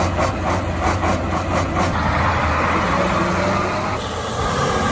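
KamAZ-4310 military truck's V8 diesel running as the truck drives through a muddy puddle, with water splashing and some knocks in the first two seconds.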